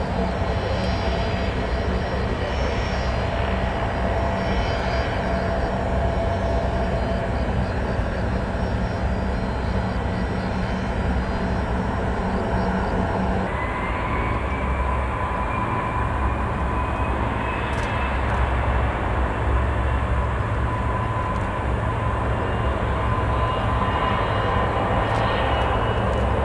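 Jet engines of a Gulfstream IV (JASDF U-4), its rear-mounted Rolls-Royce Tay turbofans, running at low power while it taxis: a steady rumble with a whine. About halfway through, a whine rises in pitch for a few seconds.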